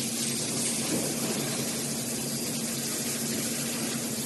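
Steady hum with an even hiss; no sudden sounds.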